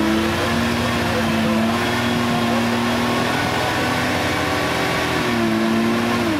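Unimog 404's petrol six-cylinder engine held at high revs under load as the truck works through deep mud, its pitch steady with a slight dip about five seconds in.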